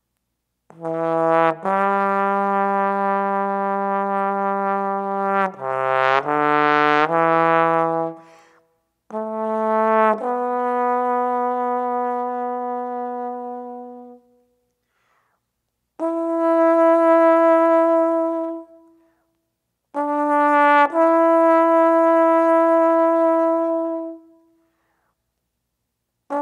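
Unaccompanied trombone playing a slow solo of long held notes in four phrases with short breaks between them, with a quick run of changing notes in the first phrase.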